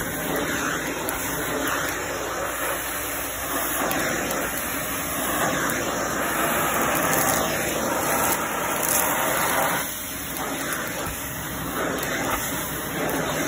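Shark handheld vacuum running steadily over carpet, sucking up a scattered pile of sprinkles and beads, with small clicks and rattles of debris going up the nozzle.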